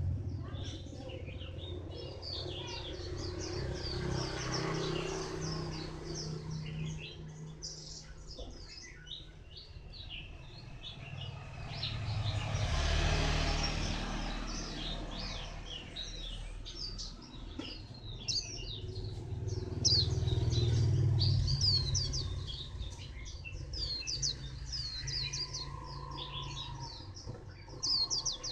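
Caged white-eye singing a long run of quick, high twittering phrases, busiest in the last third. Road traffic rumbles underneath, swelling twice as vehicles pass.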